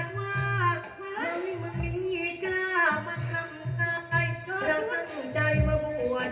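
Thai likay singing: a voice sings a long, sliding, ornamented melodic line over instrumental accompaniment with a regular low beat.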